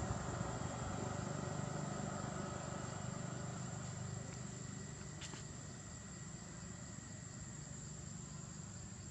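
Low engine rumble of a motor vehicle, slowly fading. Under it runs a steady high-pitched insect drone, and a single sharp click comes about five seconds in.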